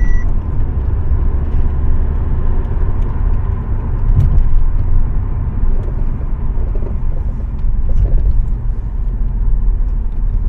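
Road and tyre rumble inside a 2015 Audi A4's cabin as it drives over a long gentle slope, with squeaking and creaking from the front suspension. The mechanic takes the noise for worn, loose control-arm rubber bushings.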